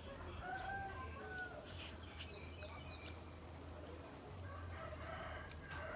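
Chickens calling in the background: short wavering calls about half a second in and again near the end, over a steady low hum, with a few soft clicks.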